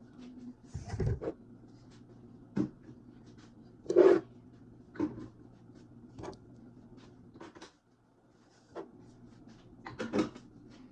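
Irregular knocks and clunks of household items being handled and set down, about one a second or so, the loudest about four seconds in and again near the end, over a low steady hum.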